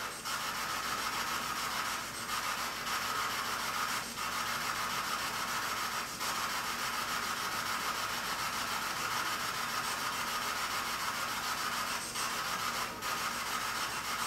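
A steady rushing hiss with a faint high tone running through it, dipping briefly now and then.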